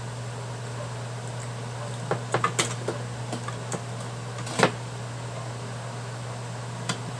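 Small clicks and knocks of a car ECU's circuit board and metal case being handled on a workbench: a quick cluster about two seconds in, one sharper knock near the middle and a light one near the end. A steady low hum runs throughout.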